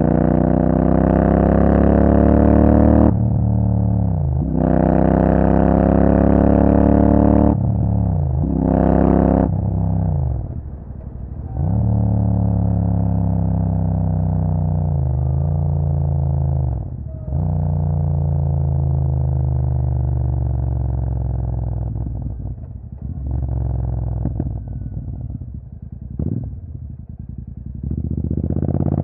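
Royal Enfield Super Meteor 650's parallel-twin engine through a Rhino Racing aftermarket exhaust, heard from the saddle. It accelerates through two upshifts, the note rising then dropping sharply at each shift, and gives a short rev burst. It then cruises steadily and winds down off the throttle, running quieter and lower with a few short blips near the end.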